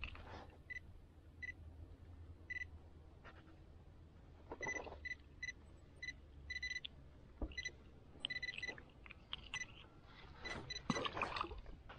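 Fish finder sonar unit giving short, high electronic beeps at irregular intervals, singly and in quick pairs, as its fish alarm would. Faint rustling of hands unhooking a small bluegill comes in between.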